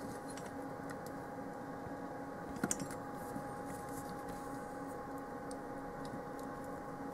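Fans of a homemade fume extractor running with a steady hum, set to a high speed. A short cluster of clicks about two and a half seconds in as the extractor is handled.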